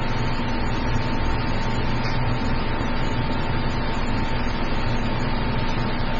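Steady background hum and hiss with a constant mid-pitched tone running underneath; no distinct knocks or events.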